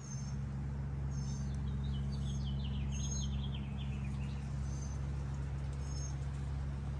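Small birds chirping with short high notes about once a second, and a bird singing a run of notes that step down in pitch about two seconds in. Under it runs a steady low mechanical hum.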